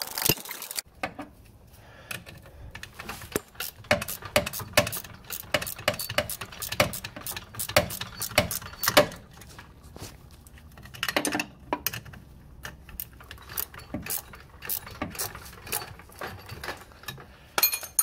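Irregular metallic clicks and clinks of a wrench and hardware on a car's rear trailing-arm pivot bolt as the nut is worked on, with a quick cluster of clinks about 11 seconds in and again near the end.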